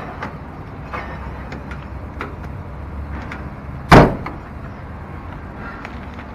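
Car door shut with a single loud slam about four seconds in, after a few light clicks and knocks of handling the door.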